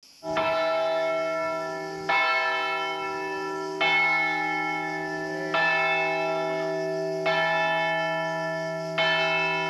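A single church bell tolling at a slow, even pace: six strikes on the same note, about one every second and three quarters, each ringing on into the next.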